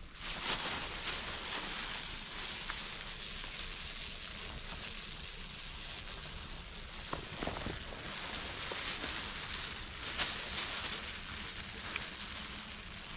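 Plastic bag and tarpaulin sleeve rustling and crinkling as a wild bee nest is scooped into the bag by hand, a steady crackly hiss with a few sharper crackles.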